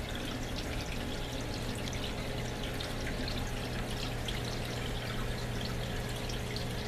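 Aquarium water trickling and splashing steadily, as from a filter's return flow, over a low steady hum.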